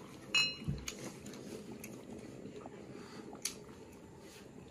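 Dishes and utensils clinking: one sharp, ringing clink about a third of a second in, a dull thump just after, then scattered light clicks and taps.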